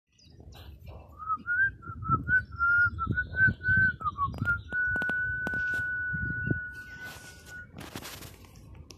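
Someone whistling a short wavering tune that ends on one long held note. Low thumps and a few clicks of handling or footsteps sound underneath, and a brief rustling rush comes near the end.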